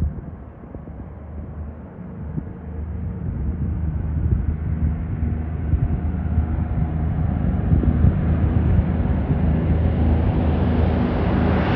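Twin Pratt & Whitney R-2800 radial engines of a Douglas A-26 Invader at takeoff power, a deep propeller drone growing steadily louder and brighter as the bomber rolls, lifts off and climbs toward the listener.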